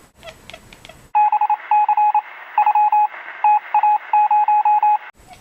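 Morse code: a single beeping tone keyed on and off in short and long beeps, with a steady hiss behind it. It starts about a second in, after a few light clicks, and cuts off abruptly near the end.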